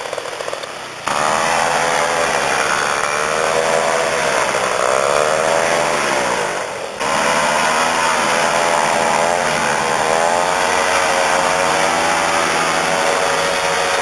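Paramotor's two-stroke engine running, its pitch wavering up and down. The sound jumps louder abruptly about a second in and again about halfway through.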